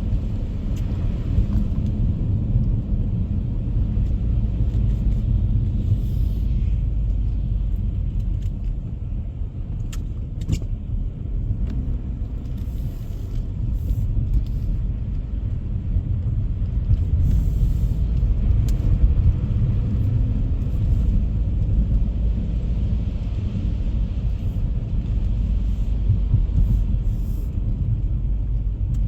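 Steady low rumble of a car driving along a road: engine and tyre noise heard from inside the car.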